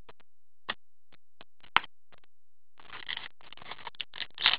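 Trading cards handled in cotton-gloved hands: a few light clicks of cards tapping and sliding against each other, then from about three seconds in a denser rustling and scraping as the next pack is worked open.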